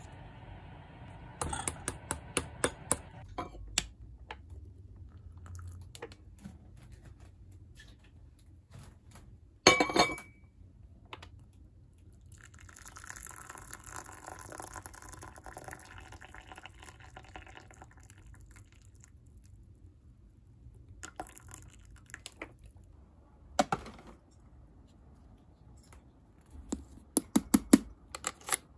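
Kitchen handling sounds: light clicks and clinks, a louder knock with a brief ring about ten seconds in, and liquid pouring for several seconds in the middle.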